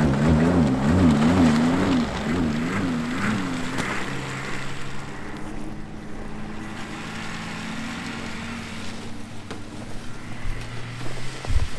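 Ski-Doo Expedition SE 900 snowmobile engine running under a rider, its pitch rising and falling repeatedly over the first few seconds as the throttle works. It then settles into a steadier, quieter run, with a few knocks near the end.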